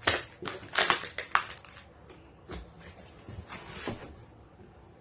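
Old cardboard box being pried open by hand: dry crackling and scraping of the cardboard flaps and tape, with several sharp bursts in the first second and a half and softer ones after.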